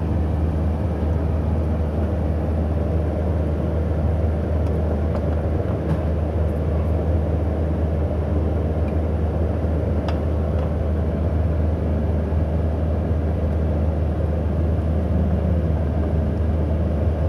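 Steady low whirring rumble, even in level throughout, with a couple of faint light clinks as food and a wooden spatula touch a porcelain serving plate.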